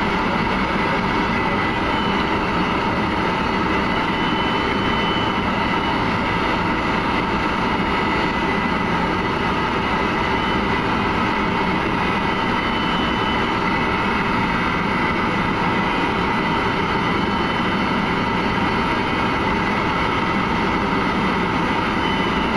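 Steady flight-deck noise of an Airbus A300-600 on final approach with the landing gear down: an even rush of airflow and engine noise with a few faint steady tones in it.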